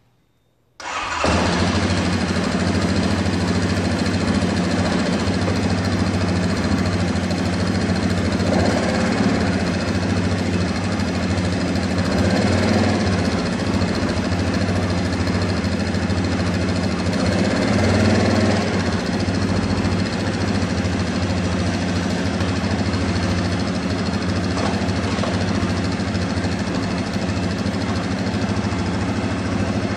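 2017 Yamaha Kodiak 700 ATV's single-cylinder four-stroke engine starting about a second in and then idling steadily, with a few slight rises in engine speed.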